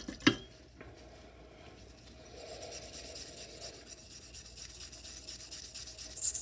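A sharp tap, then rapid scrubbing strokes over a steel knife blade to take off the last rust spots, getting louder toward the end.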